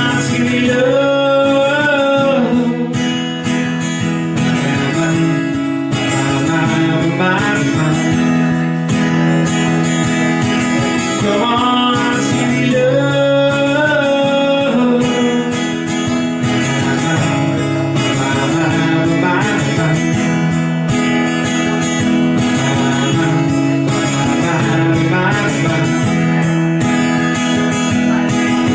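Acoustic guitar strummed steadily through the chords, with a higher melody line that swells and falls near the start and again about halfway through.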